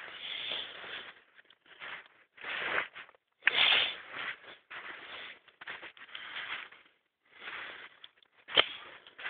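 Footsteps crunching in snow: an uneven run of scrunches with short pauses between them, and a single sharp knock near the end.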